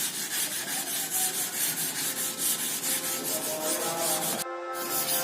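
Sandpaper rubbed back and forth over a car body panel in quick, even strokes, about four a second, as the panel is sanded down for repainting. The sound breaks off briefly near the end.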